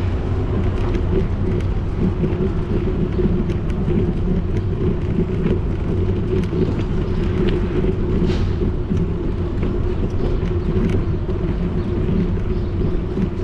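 Bicycle rolling over cobblestone paving: a steady low rumble from the tyres, with frequent small rattles and clicks.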